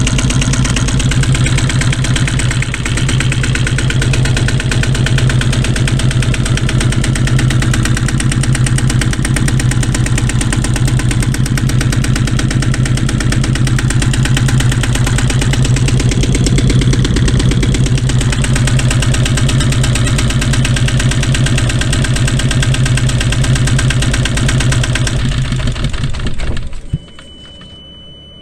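Yamaha Y26 II EX boat's inboard engine idling steadily, then shut off about 27 seconds in. A steady high-pitched tone sounds for a second or so after it stops.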